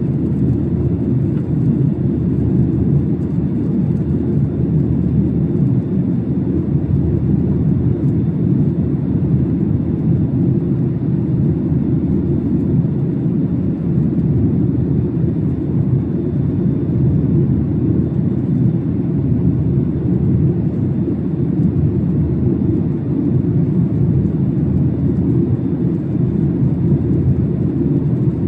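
Cabin noise aboard a Boeing 737-800 airliner: a steady low rumble of engines and airflow that holds even throughout.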